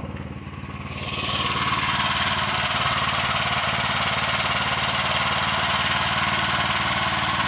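Portable band sawmill's small gas engine running steadily; about a second in it speeds up and a steady whirring hiss joins, holding at an even level: the band blade running, not yet in the log.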